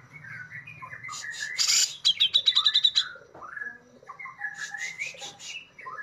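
Grey-cheeked bulbul (cucak jenggot) singing: varied twittering notes, loud sharp scratchy notes (besetan) about one and a half seconds in, then a quick run of high trilled notes and softer twittering.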